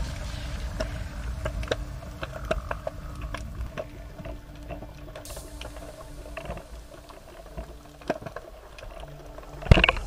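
Underwater sound picked up by an action camera in its housing: a low wash with scattered sharp clicks and crackles. Near the end comes a single loud, sharp knock as the pole spear is released at a fish.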